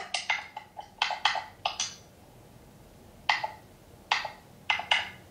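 Short wet squelching noises coming over a video call in irregular quick clusters with pauses between: a fleshlight sound played as a prank.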